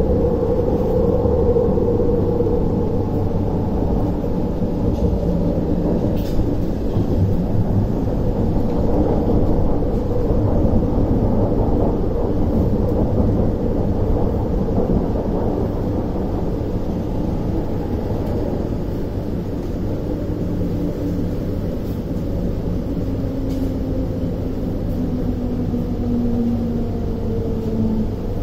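Chinese-built MTR Tuen Ma Line C-train heard from inside the car, running with a steady rumble of wheels on track. Near the end, a motor whine falls in pitch as the train slows into a station.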